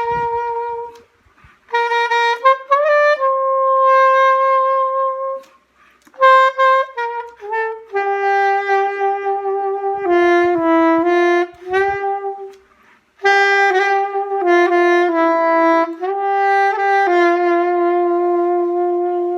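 Solo saxophone, unaccompanied and without effects, playing a slow Christmas melody in phrases of long held notes, with short pauses between phrases.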